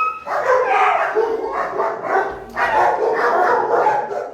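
Shelter dogs barking in their kennel runs, loud and almost without pause.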